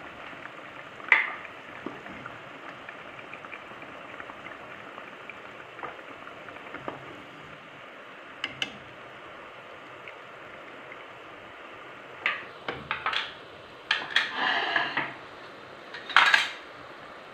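A metal spoon and a wooden spatula clink against a nonstick pot as cooked chicken pieces are lifted out of a simmering tomato sauce. There are a few single clinks, then a run of louder clanks near the end, over a faint steady bubbling of the sauce.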